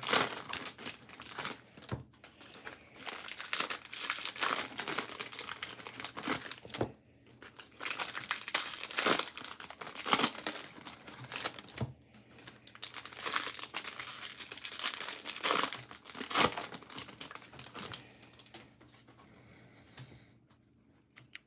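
Foil wrappers of trading card packs crinkling and tearing as they are opened by hand: a run of irregular crackles with short pauses, thinning out near the end.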